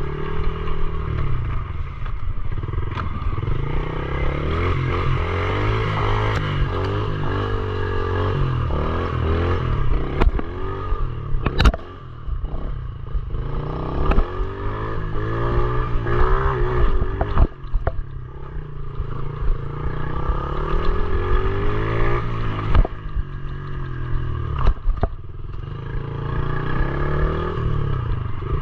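Pit bike's small single-cylinder engine being ridden hard, its pitch rising and falling over and over as the throttle is opened and closed, with knocks and rattles from the bike over rough ground and a sharp knock about twelve seconds in.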